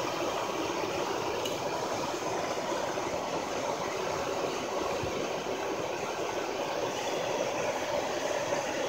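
Hair dryer blowing a steady blast of air through a steel pipe into a charcoal bucket furnace: a constant rushing noise of the blower and the air-fed charcoal fire, which is running hot enough to melt aluminium cans in the crucible.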